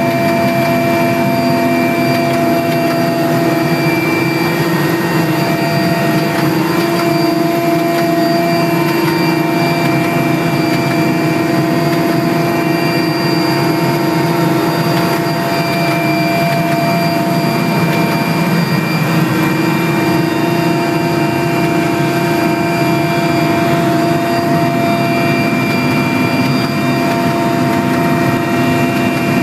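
Steady, loud engine and rotor noise inside an offshore transport helicopter's passenger cabin in flight, with several fixed whining tones over the din.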